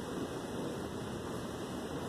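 Steady rain during a thunderstorm, an even hiss with no single thunderclap standing out.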